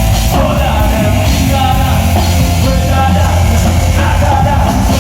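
Live gospel band playing loudly, with a voice singing over a steady heavy bass.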